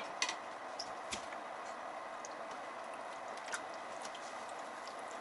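Chicken and vegetables simmering in broth in a stainless pot on an induction cooktop: a steady bubbling hiss with a few light pops and clicks. A wooden spatula stirs the pot near the end.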